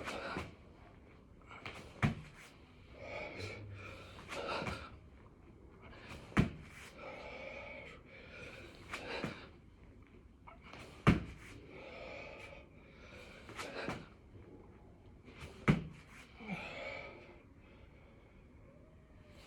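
A person breathing hard with gasps during six-count burpees, with a sharp thud against the floor about every four and a half seconds, four in all.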